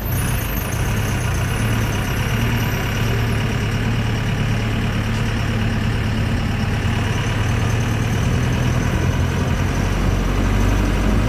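Truck engine running steadily under a constant rumble of road noise, with the deepest part of the engine note growing stronger near the end.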